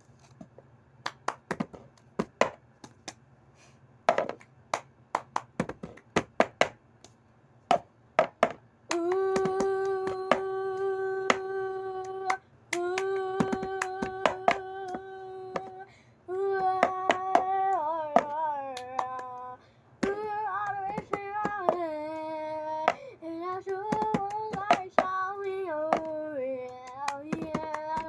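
Cup-song routine: hand claps and a plastic cup tapped, knocked and set down on a surface in a repeating pattern. About nine seconds in, a young girl's voice starts singing over the taps, with long held notes at first and then a moving tune.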